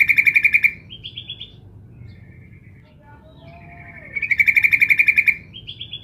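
Female yellow-vented bulbul (trucukan) calling: a loud, rapid bubbling chatter of about a second, ending in a few higher notes, given twice about four seconds apart. It is a female's call to a male, played as a lure to draw male trucukan into answering.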